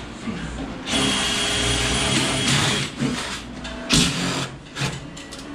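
A power tool runs in two bursts, the first just before and the second about a second in for a second and a half, each with a steady high whine. It is followed by clicks and a sharp metallic clank about four seconds in.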